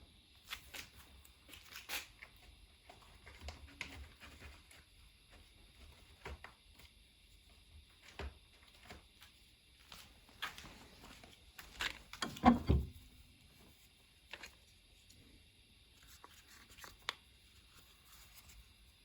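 Scattered small clicks, snips and rustles of hand work on a multi-core trailer cable, cutting wires and stripping their insulation, with a louder knock about twelve and a half seconds in.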